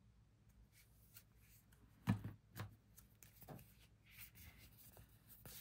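Faint handling of oracle cards: three soft taps about two seconds in, then a soft rustle of cards sliding against each other.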